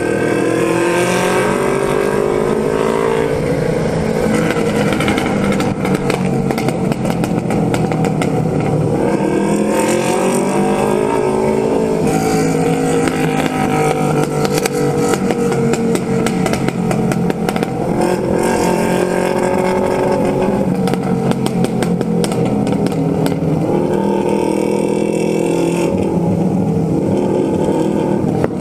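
Yamaha XJ6's inline-four engine under way, revving up and dropping back again and again as it pulls through the gears, with wind rush on the microphone.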